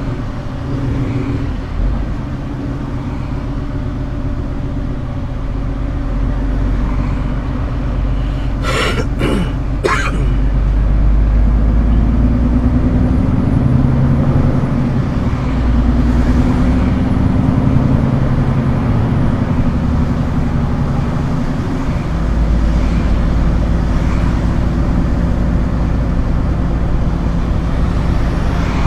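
A Scania R410 truck's diesel engine runs steadily with a low drone. Three short, sharp clicks or knocks come about nine to ten seconds in.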